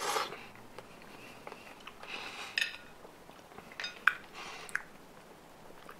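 Light clicks, clinks and scrapes of hands picking at a ripe Monstera deliciosa fruit, in short scattered bursts.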